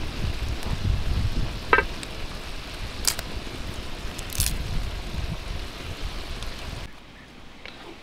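Vegetables and meat sizzling in a kazan over a wood fire, with a few sharp clicks. The sizzle drops away near the end, leaving softer outdoor sound.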